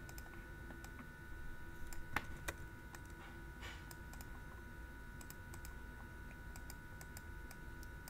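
Faint computer mouse and keyboard clicks, scattered and irregular, over a steady background hum; a couple of sharper clicks come about two seconds in.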